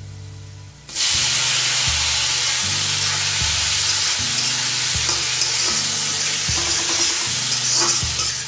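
Sliced tomatoes dropped into hot oil in an iron kadhai, setting off a sudden loud sizzle about a second in that then fries on steadily.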